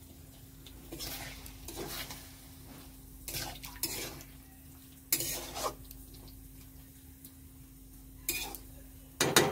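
A spatula scraping and clinking against a metal kadai as a potato and green-bean curry is stirred, in irregular strokes with the loudest clatter near the end. A faint steady hum runs underneath.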